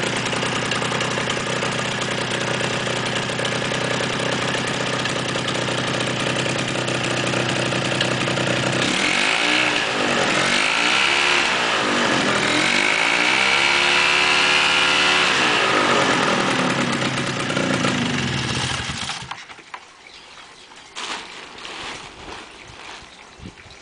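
MZ34 paramotor's single-cylinder two-stroke engine running on the ground during warm-up, its sound growing somewhat louder in the middle. About nineteen seconds in the engine is shut off and the sound falls away suddenly, leaving a few faint knocks.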